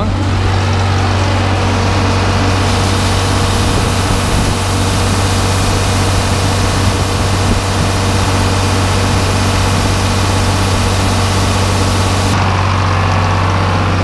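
Farm tractor engine running steadily at idle, with the hiss of shelled corn pouring out of a gravity wagon's door into an auger hopper from about three seconds in until it cuts off near the end.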